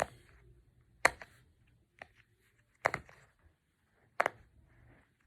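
A fidget toy being pressed, giving sharp single pops about once a second, five in all.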